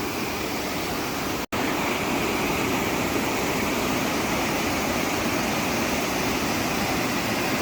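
Waterfall rushing: a steady roar of falling water, broken by a momentary dropout about a second and a half in.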